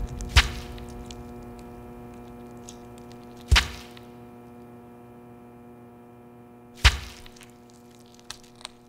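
Three sharp, heavy thunks about three seconds apart over a low, steady electrical hum that slowly fades.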